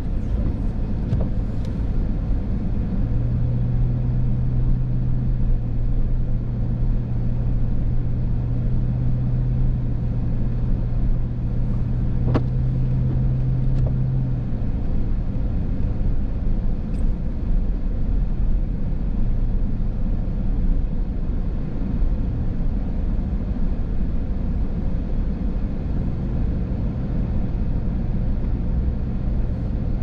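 Steady car noise heard from inside the cabin while driving: a low engine hum over tyre and road rumble. The hum grows a little louder for several seconds and then eases back, with a faint click now and then.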